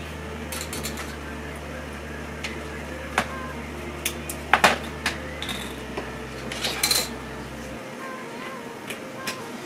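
Small sharp clicks and taps of smartphone parts being handled and snapped back together, loudest a little past the middle, with a few more clicks close together about seven seconds in. A steady low hum runs underneath, drops lower about halfway through and stops near the end.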